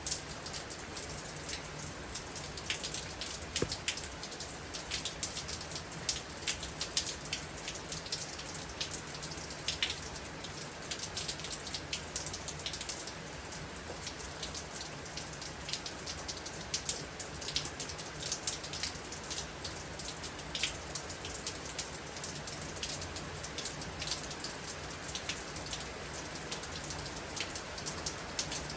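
Steady heavy rain falling, with many irregular individual drops striking a surface close by.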